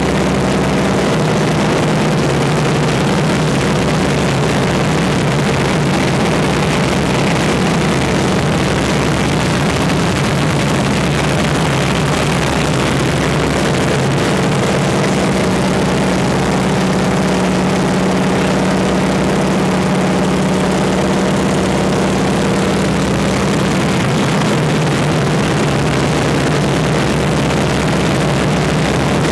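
North American T-6 Texan's nine-cylinder Pratt & Whitney R-1340 radial engine and propeller droning steadily, heard from inside the cockpit over a loud rush of air.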